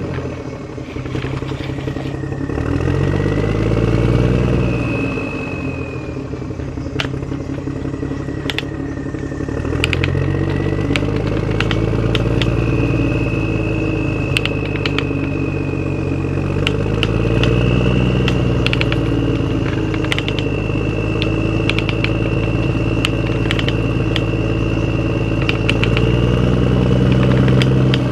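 Radio-controlled construction models running in dirt. A low, engine-like drone swells and falls every few seconds under a high motor whine that slides slowly up and down, with scattered sharp clicks.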